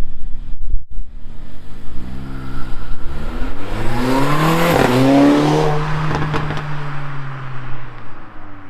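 Mercedes-AMG CLA45's turbocharged four-cylinder accelerating past, its note climbing as the car approaches and dropping in pitch as it passes about halfway through, then fading. Under the exhaust there is a faint intake hiss from the turbo, breathing through a K&N air filter.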